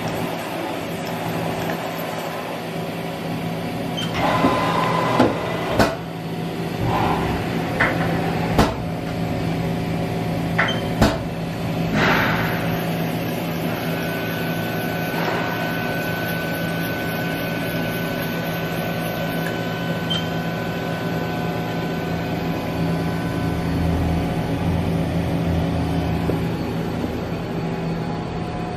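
Haas EC-500 horizontal machining center running with a steady machine hum. From about four to twelve seconds in, several sharp clunks and mechanical clatter come as the rotary pallet table indexes to a new angle. A thin steady whine follows for several seconds.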